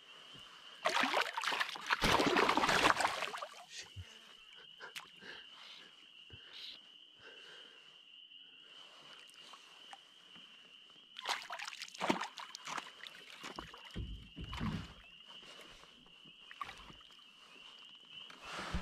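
Hooked smallmouth bass splashing at the surface beside the canoe as it is landed by hand: a loud burst of splashing about a second in, lasting about two seconds, then smaller splashes and knocks around eleven to fifteen seconds in.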